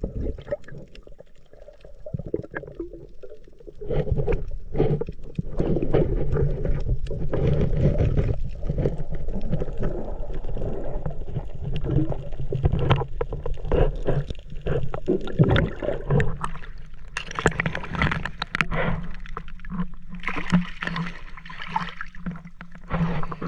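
Water sloshing and gurgling around a camera held underwater, muffled, with scattered small knocks and scrapes as a gloved hand works over gravel. About two-thirds of the way in it turns brighter and splashier as the camera breaks the surface and a hand net is scooped through the water.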